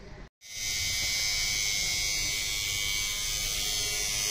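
Coil tattoo machine buzzing steadily while tattooing skin. It starts about half a second in and holds an even high-pitched hum.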